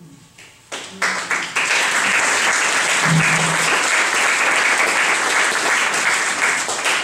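Audience applause: a few separate claps just before a second in, quickly building into steady clapping from a small crowd that holds for several seconds and begins to fade near the end.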